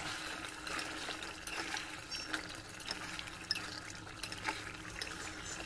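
Thick mutton stew bubbling and sputtering in an aluminium pressure-cooker pot as it is fried down and stirred with a ladle, with many small irregular pops over a steady hiss.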